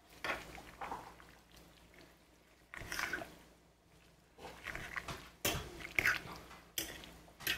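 A metal spoon stirring a pot of minestrone soup heaped with fresh spinach leaves: irregular wet squishing and rustling as the leaves are worked in, with a few sharper scrapes and knocks, the loudest about five and a half and six seconds in.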